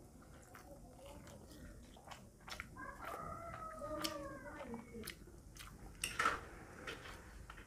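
Close-miked eating of rice and rohu fish curry by hand: chewing and wet mouth clicks, with a louder wet smack about six seconds in. About three seconds in, a drawn-out pitched sound rises and then falls.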